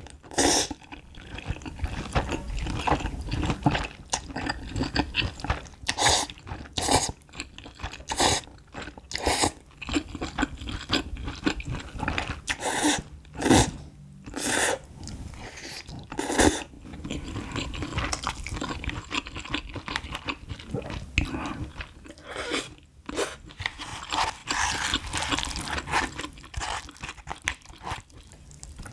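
Close-miked eating of cup ramen: noodles slurped and chewed, with many short wet mouth sounds and stretches of hissing slurp.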